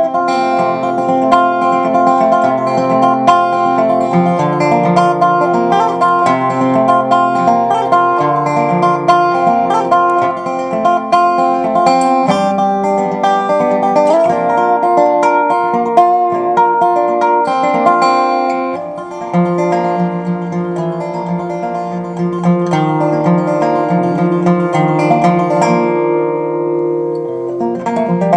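Resophonic guitar played solo: a steady stream of plucked notes over ringing chords, with a brief drop in loudness about two-thirds of the way through and softer playing after it.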